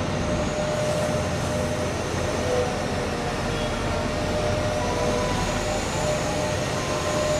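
Giant BelAZ 450-tonne mining dump truck driving: a steady running noise of engine and drive, with a faint high whine over it.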